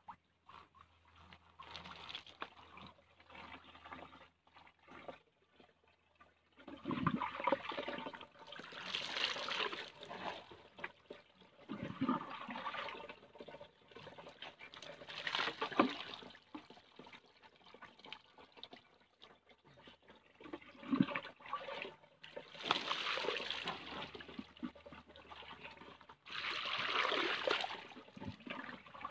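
Water being poured over a person bathing: about six separate pours several seconds apart, each splashing for one to three seconds, with quieter trickling between them.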